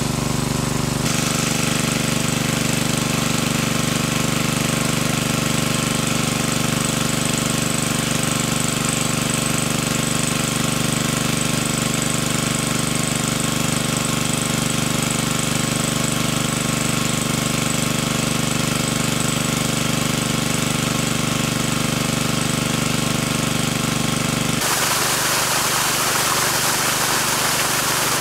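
Engine-driven water pump running steadily with an even, unchanging hum. About 24 seconds in, the sound changes to water gushing and splashing hard from the pump's outlet, with the engine fainter underneath.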